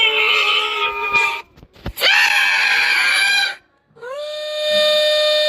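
A run of high-pitched cartoon-character screams. One trails off, a second lasts about a second and a half, and a third starts about four seconds in with an upward slide, then holds one steady pitch.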